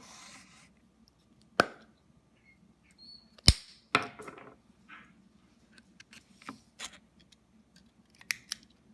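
A handful of separate sharp knocks and clicks, the loudest about three and a half seconds in, with quieter ones scattered through.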